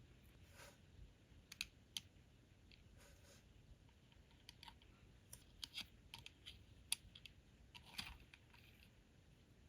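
Faint, irregular light clicks and taps of small plastic miniature pieces being handled and set down, coming more often in the middle of the stretch.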